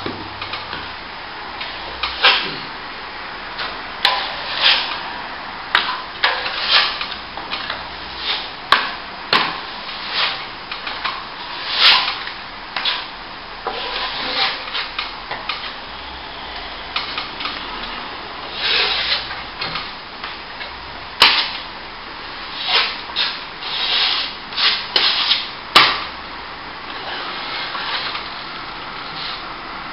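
Plastering trowel scraping over wet top-coat plaster in short, irregular strokes, with now and then a sharp click or knock.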